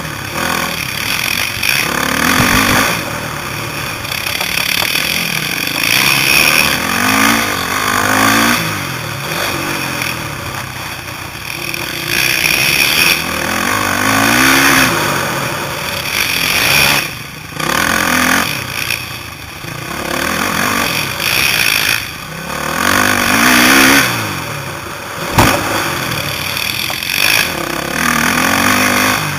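450cc four-stroke motocross bike engine revving up and down again and again under hard riding, with a few short drops where the throttle is shut off.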